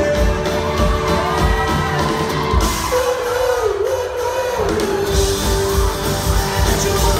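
Live rock band playing: acoustic and electric guitars over a steady kick-drum beat, with a long held sung note that wavers in pitch near the middle. The sound echoes around a large hall.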